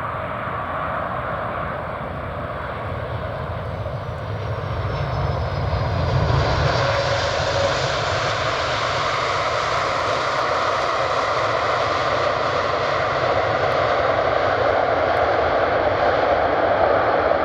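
Jet engines of a four-engine Boeing 747-400F freighter on landing: a steady roar with a faint falling whine, swelling louder about six seconds in and staying loud.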